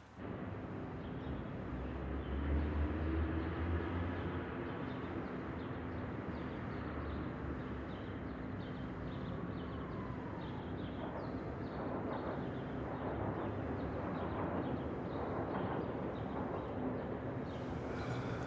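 Steady outdoor city background: a low rumble like distant traffic under a faint steady hum, the rumble swelling for a couple of seconds near the start.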